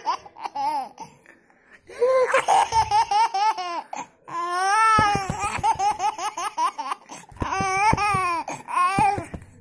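A little boy laughing in high-pitched bursts of quick ha-ha-ha, with short pauses between the bursts.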